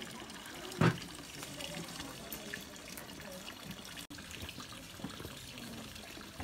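Steady sound of running water, with a single sharp knock about a second in.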